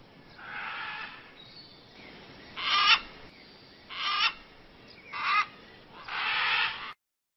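Macaw giving a series of about five harsh squawks, roughly a second apart, the first one fainter; the sound cuts off abruptly near the end.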